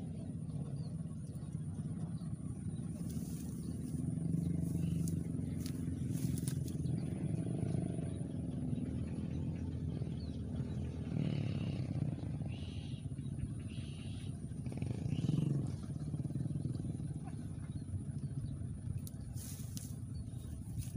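Steady low background rumble, with fainter, irregular sounds higher up in the middle stretch.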